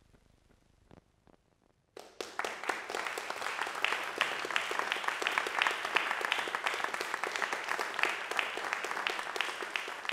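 Audience applauding, starting suddenly about two seconds in after near silence and continuing as dense, steady clapping.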